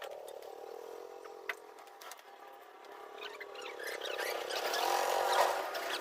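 A small motor whirring with a slowly wavering pitch, with a few light clicks. It grows louder and harsher for a second or so near the end.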